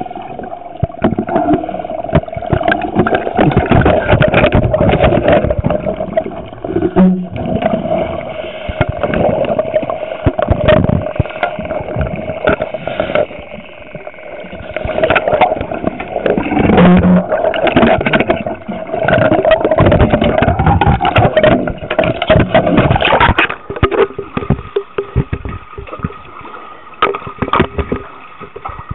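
Underwater sound on a scuba dive: a boat's engine and propeller droning as a steady, slightly wavering whine through the water, stopping about three quarters of the way through. The diver's exhaled regulator bubbles rush and rumble over it in irregular bursts.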